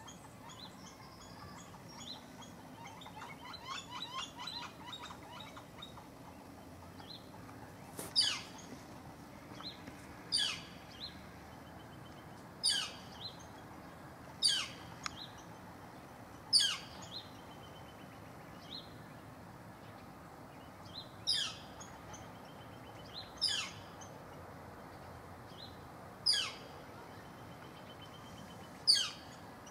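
Yellow-shafted flickers calling: first a quick run of softer, rapidly repeated notes, then nine loud, sharp calls that slur steeply downward, one about every two seconds.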